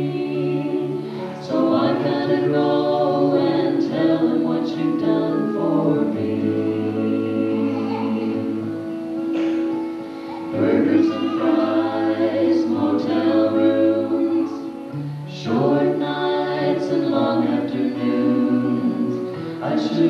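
Mixed gospel quartet, two men and two women, singing in close harmony through handheld microphones, in phrases of about four to five seconds with a low bass part underneath.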